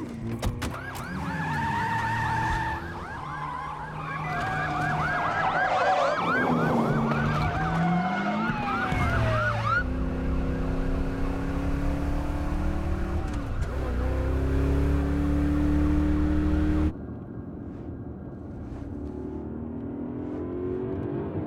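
Several police sirens wailing and yelping over car engines. About ten seconds in the sirens give way to a car engine revving hard and climbing in pitch, which cuts off abruptly to a quieter engine hum, and the sirens return near the end.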